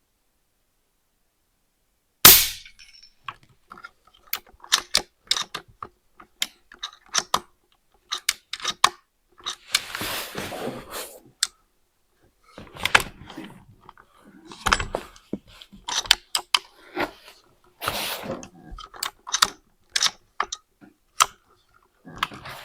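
An air rifle fires one sharp, loud shot about two seconds in. It is followed by a string of smaller clicks, knocks and rustling from handling the rifle.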